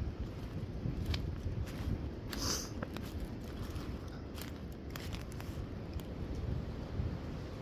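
Footsteps crunching and rustling through dry fallen leaves and twigs on a woodland floor, with scattered crackles and a louder rustle about two and a half seconds in, over a low rumble of wind on the microphone.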